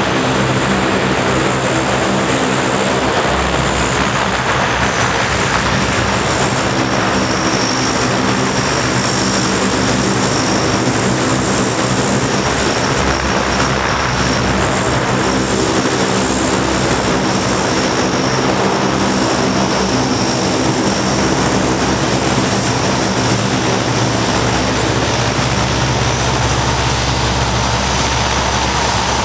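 Four Allison T56 turboprop engines of a C-130 Hercules running as the aircraft taxis. There is a steady propeller drone with a high-pitched turbine whine over it.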